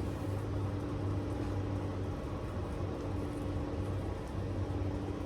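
Steady low mechanical hum with one constant tone running through it, unchanging throughout.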